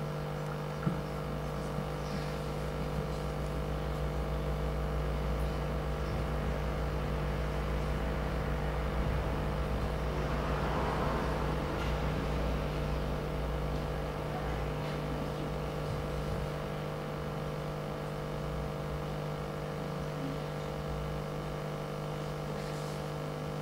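Steady room hum made of several fixed tones over a low rumble, holding at an even level.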